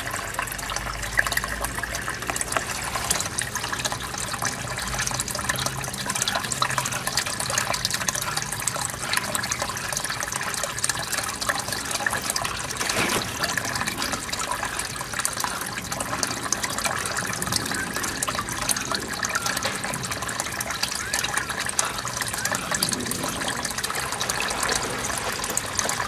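Running water of a small spring-fed river, a steady rushing hiss with fine crackle and no break.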